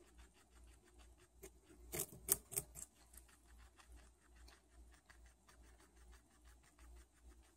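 Guinea pig biting and chewing a raw carrot: a rapid run of small crunching clicks, with a burst of louder crunches about two seconds in.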